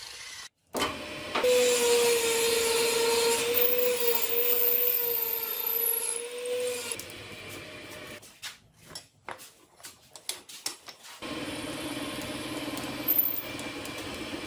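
A miter saw runs with a steady whine while cutting a wooden block, then stops about seven seconds in. After a few short choppy snippets, a metal lathe spins a drill bit boring into a wooden block, with a steady lower hum.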